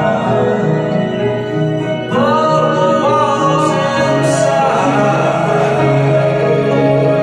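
Live band music heard from the crowd at a club show: held electronic chords and guitar, with a wavering sung line coming in about two seconds in.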